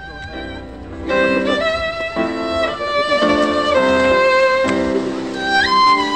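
Background music: a violin playing a melody of held notes.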